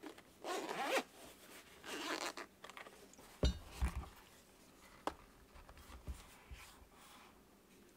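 A zipper pulled open in two quick rasping strokes, then several light knocks and clicks as the DJI Osmo Mobile 3 gimbal is taken out and handled.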